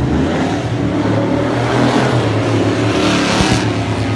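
A motor vehicle engine running, loud and steady.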